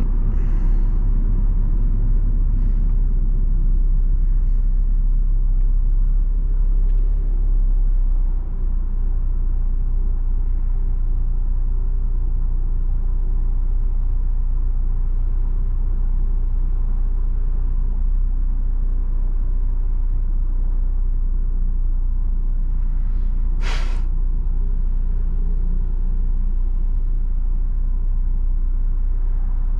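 Honda S2000's JDM F20C four-cylinder engine and road noise while driving, heard from inside the cabin with the soft top up: a steady low drone. Loudness dips briefly about eight seconds in, and a short sharp noise comes near the end.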